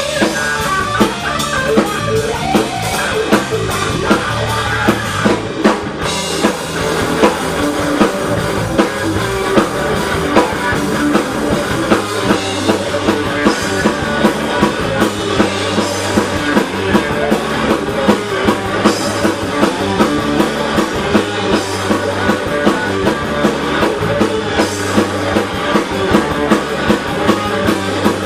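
A live blues-rock band playing an instrumental stretch without vocals: guitar over a steady drum-kit beat and bass.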